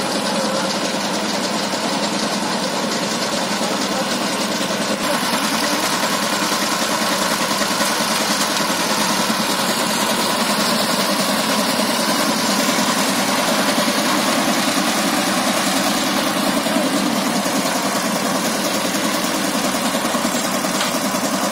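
Single-cylinder diesel engine of a two-wheel power tiller running steadily with a fast chugging beat, hitched to a fully loaded paddy trolley stuck in mud. It gets a little louder from about five seconds in as the tiller works to pull the trolley free.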